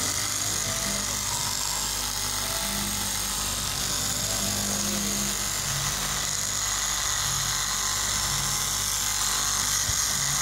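KM straight-knife cloth cutting machine running, its vertical reciprocating blade cutting through a stack of fabric layers with a steady high-pitched buzz.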